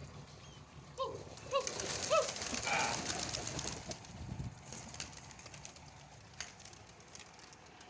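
A flock of domestic flying pigeons taking off and flapping as they are sent up into flight, a dense rush of wingbeats from about two seconds in that fades after four. Just before it come three short rising-and-falling notes.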